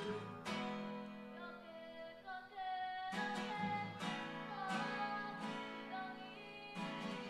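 Kapa haka group singing a waiata, accompanied by strummed acoustic guitars.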